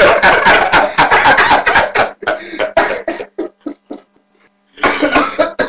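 A man laughing hard: a quick run of loud laughs that thins out and fades after about three seconds, then a short burst of noise near the end.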